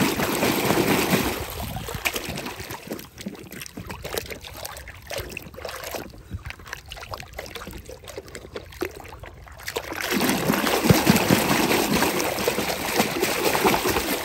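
Pond water splashing and sloshing as a hand swishes a plastic toy car vigorously through it to wash off the mud. Hard splashing for the first second or so and again from about ten seconds in, with quieter light sloshing and drips between.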